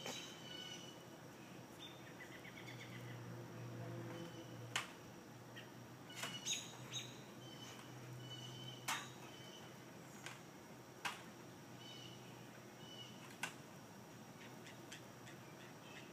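Faint outdoor ambience: birds chirping at intervals over a low steady hum, with several sharp clicks scattered through it.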